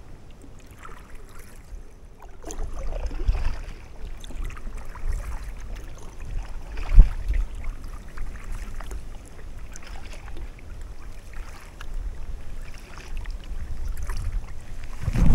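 Paddle strokes dipping and splashing beside an inflatable kayak, over a low rumble, with one sharp knock about seven seconds in.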